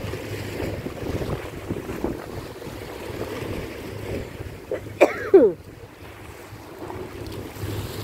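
Wind buffeting the microphone over sea waves, with a low steady hum underneath. About five seconds in, a short, loud squeal falls sharply in pitch.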